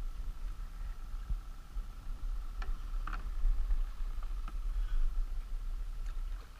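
Low, uneven rumble of wind and water noise on the kayak-mounted camera's microphone, with a faint steady high tone. A few light clicks and knocks of fishing gear being handled on the kayak come around the middle.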